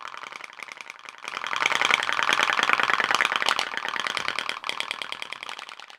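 Homemade pop-pop (putt-putt) steam engine running on its candle flame: a rapid, steady stream of sharp metallic pops and ticks as water flashes to steam and the engine's thin metal body flexes. The sound fades in about a second in and fades out near the end.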